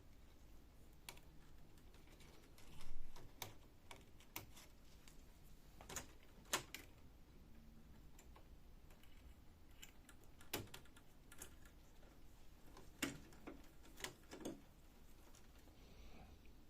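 Scattered light clicks and taps of hands working inside a Canon multifunction laser printer, as a screw is undone and cables are unplugged from the scanner assembly. The loudest knock comes about three seconds in.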